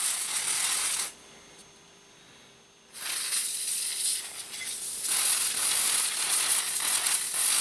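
Aerosol spray can hissing in two bursts: a short one at the start and a longer, steady one of about four and a half seconds from about three seconds in. Cleaning spray is being sprayed onto a clock-radio's clock and alarm mechanism.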